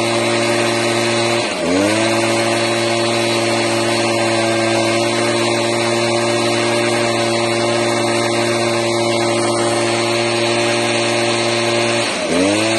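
Stihl BG 86 C leaf blower's two-stroke engine running steadily at high speed, near 6,900 rpm, on its rebuilt carburetor. Its pitch dips briefly and recovers about a second and a half in and again near the end.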